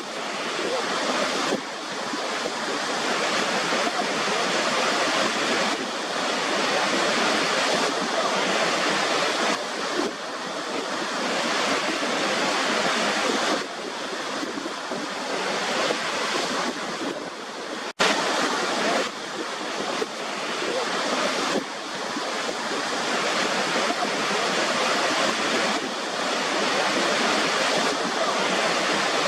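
Steady rush of a waterfall, swelling and easing every few seconds, with a momentary break about two-thirds of the way through.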